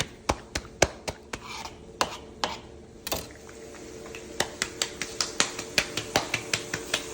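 Fry jack dough frying in hot oil in a frying pan: irregular sharp pops and crackles over a hiss that grows, with the pops coming faster, about three seconds in.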